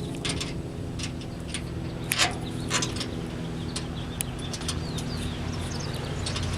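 Light, irregular metal clicks and clinks of washers and wing nuts being unscrewed and taken off bolts, over a steady low hum.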